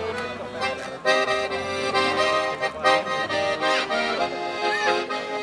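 Solo button accordion playing a tune, its notes changing quickly one after another.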